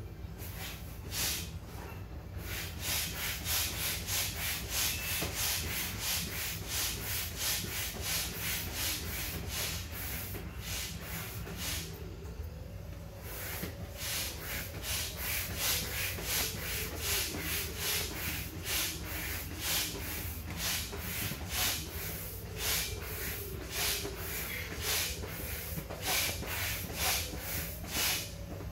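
Manual air pump inflating an inflatable kayak's chamber: rhythmic strokes of rushing air, about two a second, with a short pause about twelve seconds in.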